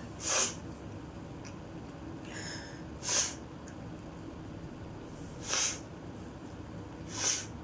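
A person with a cold sniffling: four short, sharp sniffs through the nose, a couple of seconds apart.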